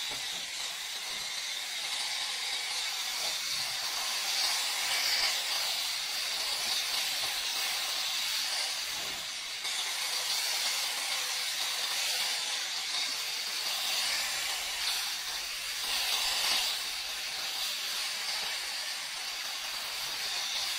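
Pressure-washer jet hissing steadily as it sprays water over car bodywork and a rubber floor mat, swelling louder a couple of times.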